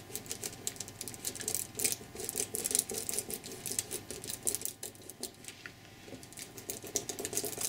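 Thin gold mirror foil crinkling and crackling in quick, irregular little clicks as fingers rub it firmly onto a glued canvas to transfer the gold.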